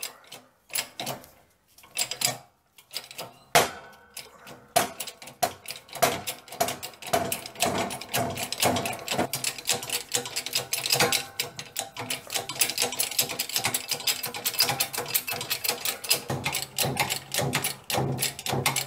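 Shop press pushing the spindle shaft out of a mini lathe headstock casting: a series of sharp clicks and knocks, a few separate ones at first, then a fast, dense clatter from about six seconds in.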